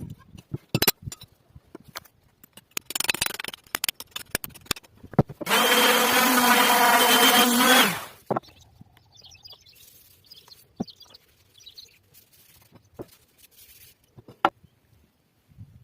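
A small power tool's motor runs steadily for about two and a half seconds, then drops in pitch as it spins down. Scattered knocks and clicks of tool handling come before and after it.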